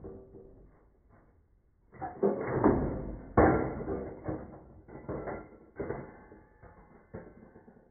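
Browning M1917A1 water-cooled machine gun, converted to semi-automatic, firing single shots. A quick run of three or four comes about two seconds in, then slower shots roughly a second apart.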